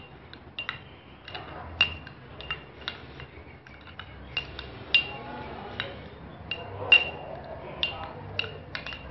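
Metal spoon stirring a runny dressing in a small glass bowl, clinking irregularly against the glass about twice a second, each clink with a short bright ring.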